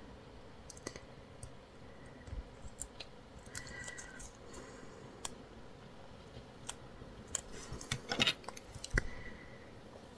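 Fingernails picking at a sticker's thin plastic backing film to peel it off: faint, scattered clicks, with a brief cluster of louder ones about eight seconds in.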